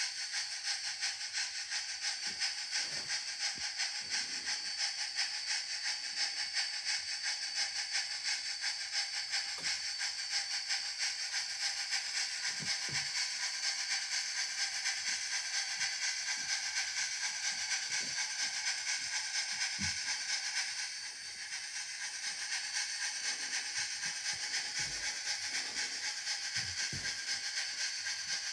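Large-scale model steam locomotive's sound system giving a rapid, even, hissy chuffing as it runs, with occasional soft clicks. The chuffing fades briefly about three-quarters of the way through, then picks up again.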